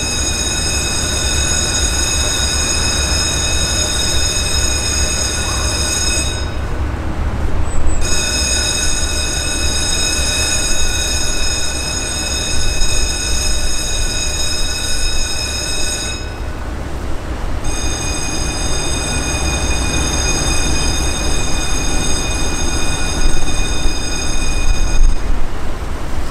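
Warning bell at a drawbridge's road crossing, ringing steadily in three long stretches with short breaks of about a second and a half between them, the signal that the bridge is about to move and the road is closed.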